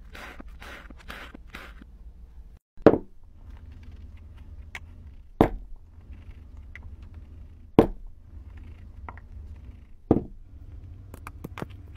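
A knife slicing through kinetic sand in quick strokes, about four a second, fading out after two seconds. Then four loud thumps about two and a half seconds apart as kinetic sand is packed into a glass with a plunger, over a low steady hum.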